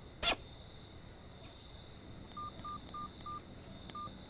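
Mobile phone keypad beeps as the handset's buttons are pressed: four short, even beeps about three a second, then one more. Just before them, near the start, comes a single short sharp noise, the loudest sound here, over a steady high background of crickets.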